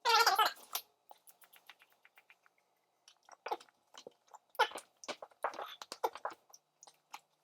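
Chewing and mouth smacking while eating McDonald's chicken nuggets: many short wet clicks and smacks. A short, loud voiced sound comes right at the start.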